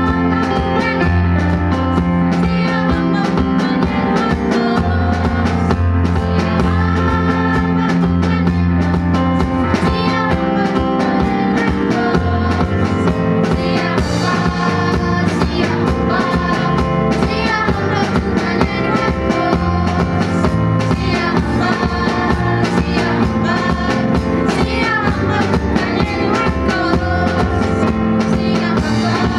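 Music with singing over a steady beat and bass.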